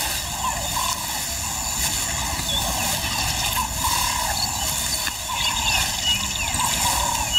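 Lioness scraping and pawing dry earth with her forepaws to bury the stomach of her kill, a steady rough scratching, with many short high chirps throughout.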